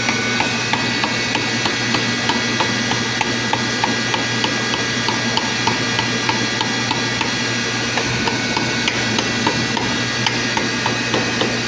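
Light, quick, evenly spaced hammer taps on the metal end cap of an electric water-pump motor, driving it home over newly installed bearings. Under them runs a steady hiss and low hum.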